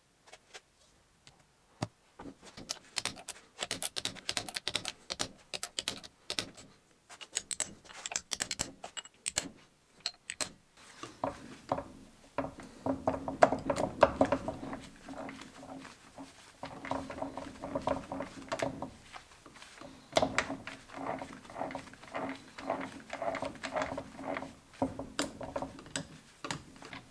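Sharp metal clicks and clatter from parts being fitted into an aluminium gearbox casing. About eleven seconds in, a steady hum with a fast, even rattle sets in as the assembled gearbox is turned over and shifted through low gear, neutral and reverse.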